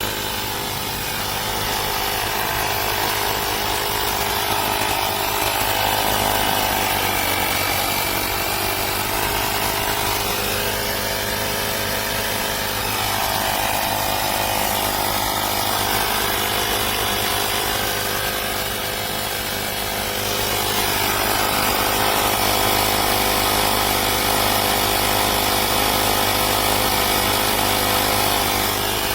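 AstroAI 12 V portable electric air compressor running steadily while inflating a car tire, a continuous buzzing motor-and-piston drone.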